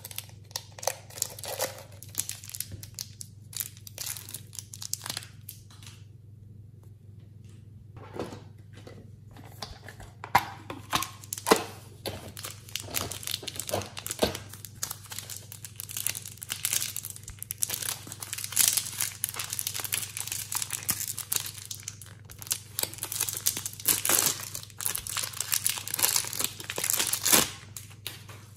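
Thin plastic packaging crinkling and tearing as small packets of clay are handled and opened by hand, in irregular bursts with a short lull about six seconds in. A steady low hum sits underneath.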